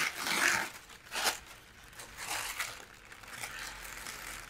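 Thin plastic bag rustling and crinkling as hands pull it open, in three short bursts over the first three seconds, then softer.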